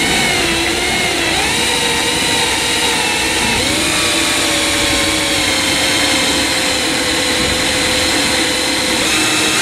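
Battery drill running under load, its bit cutting a hole through a car's interior door panel. The motor's whine wavers and shifts in pitch as the pressure on the bit changes.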